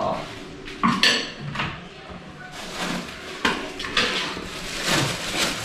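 Pots, lids and utensils knocking and clinking on a kitchen counter in short, scattered strikes, with plastic bag rustling in between, as lentils are readied for cooking dal.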